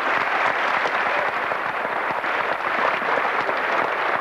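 A large crowd applauding: a dense, steady patter of many hands clapping.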